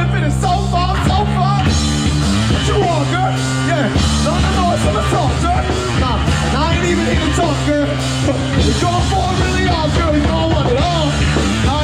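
Live rock music: a band playing steady bass notes under a singing voice.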